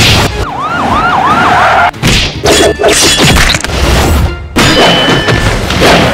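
Action-film soundtrack effects: a fast wailing siren-like sweep repeating about four times in the first two seconds, then a string of loud hits, crashes and whooshes.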